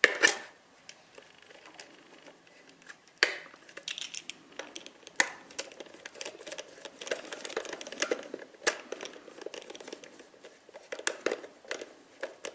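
Clicks and small scrapes of a flat-head screwdriver turning a terminal screw on a plastic plug socket, with hands knocking the plastic case. The clicking grows denser and more rapid in the second half, as the screw is turned.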